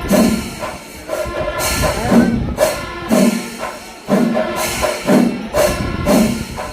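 Kerala temple percussion ensemble (chenda melam): drums beaten in a steady rhythm with cymbals clashing on the strokes, and held pitched notes sounding over them.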